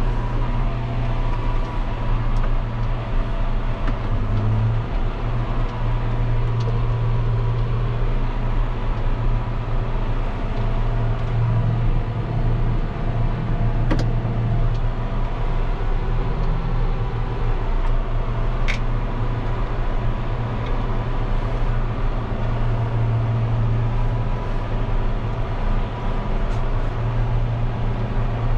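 John Deere 6140M tractor engine running steadily under load while pulling a field cultivator, heard from inside the cab, with a thin steady whine above the engine drone. A couple of brief ticks come about halfway through.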